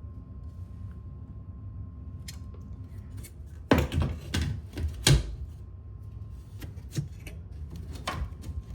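Scattered clicks and knocks of metal tabs and a 3D-printed bracket being handled and pushed into a drywall access panel frame, the loudest few coming close together about four to five seconds in.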